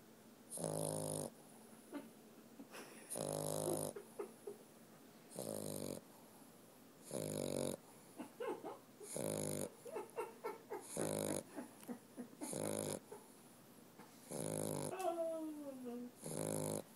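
Pet dog snoring in its sleep: about nine buzzing snores, roughly one every two seconds, with faint wheezy whistles between some breaths and a falling whistle near the end.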